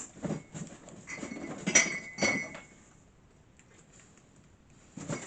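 Light knocks and clinks of small hard objects being handled, with two sharper clinks about two seconds in that ring briefly; then it goes quiet.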